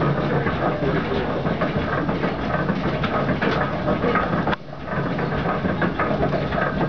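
Wood-fired steam donkey engine running under load as it winches a log on its cable: a steady low hum under a dense clatter of knocks. The sound drops away briefly about four and a half seconds in, then comes back.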